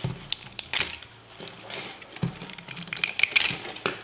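Fingers peeling wet, softened PVA support strands off a 3D-printed plastic turbine fan, with irregular small crackles and rustles as the soft plastic pulls away.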